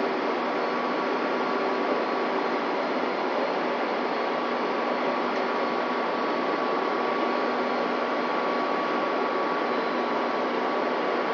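Steady din of drilling-rig machinery, an even noise without knocks or breaks, with a faint steady whine running through it.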